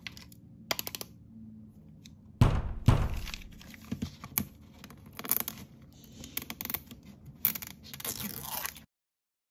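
Long acrylic fingernails tapping and scraping a plastic-wrapped toy package, with two loud thunks about two and a half seconds in. Near the end comes denser crinkling and tearing as the tear strip is picked open, and the sound cuts off suddenly.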